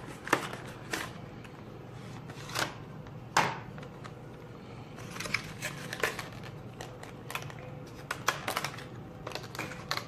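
Packaging of a new tempered-glass screen protector being handled and opened: scattered clicks, taps and rustles, with a few sharper snaps and a quick cluster of them about eight seconds in.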